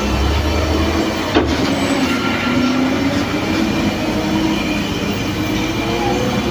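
Heavy vehicle engine labouring up a steep climb, its drone slowly rising in pitch, with a single sharp knock about a second and a half in.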